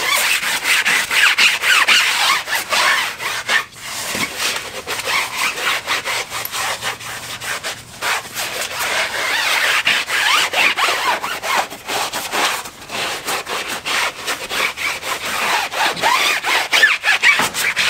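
Foam tire-shine applicator pad scrubbing back and forth over a rubber tire sidewall, spreading tire dressing: a steady scratchy rubbing in quick repeated strokes, with brief pauses about four and eight seconds in.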